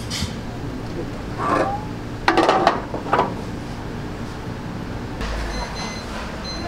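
Restaurant room noise: a steady low hum, with a few short louder sounds between about one and a half and three seconds in. Faint high steady tones come in over the last second and a half.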